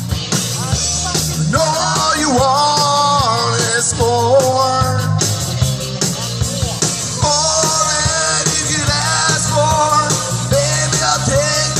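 Live rock band playing: drums, bass and electric guitars, with a bending lead melody line over them.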